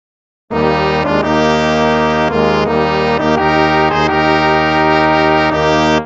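Instrumental hymn music starting about half a second in after silence, with held chords that change about once a second.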